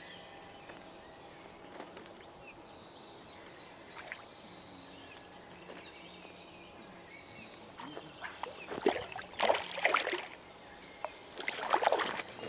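Quiet outdoor ambience with a few faint bird chirps, then water splashing in two loud bursts near the end, the first about two seconds long and the second about a second.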